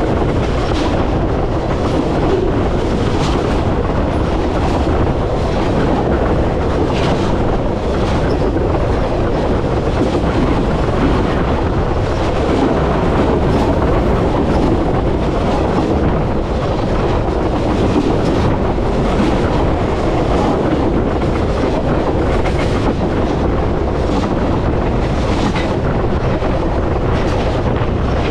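Train cars rolling directly over a camera lying between the rails: a steady close rumble of steel wheels on the rails, with irregular clacks as the wheelsets pass.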